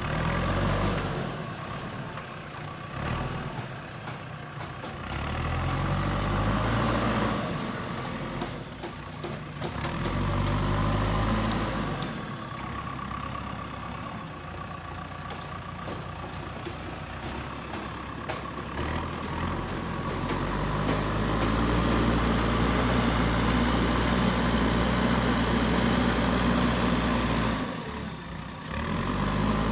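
JCB backhoe loader's diesel engine revving up and dropping back to idle again and again as the machine works, with a long stretch of high revs in the second half that eases off near the end.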